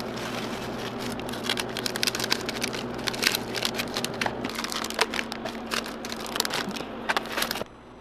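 Clear cellophane snack bags and plastic gloves crinkling as oranda clusters are packed into the bags by hand, a dense run of small crackles that cuts off suddenly near the end.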